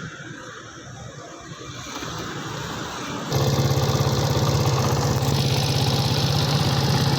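Qingqi motorcycle rickshaw's engine catches suddenly about halfway through and settles into a steady idle, run as a check after a cylinder head and piston-ring rebuild.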